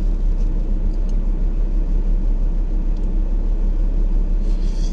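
A steady low rumble with a constant deep hum, unchanging throughout.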